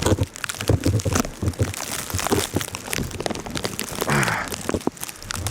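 Footsteps crunching through deep fresh snow, an irregular run of crunches, with a short grunt or breath about four seconds in.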